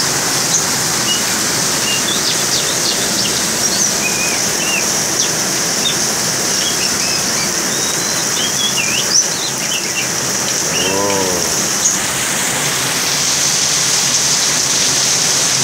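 Heavy rain falling steadily, with an oriental magpie-robin (kacer) singing short, scattered whistled chirps over it through the first ten seconds or so. About eleven seconds in comes a brief low call that rises and falls in pitch.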